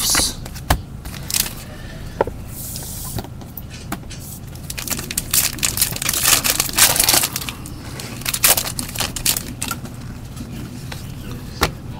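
Trading cards handled and shuffled by gloved hands, with a crumpled pack wrapper crinkling: a run of sharp clicks and short crackles.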